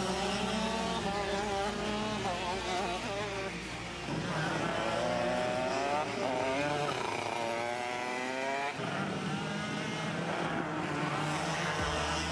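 Two-stroke racing kart engines revving through corners, their pitch falling under braking and climbing again as the karts accelerate away, several karts in turn.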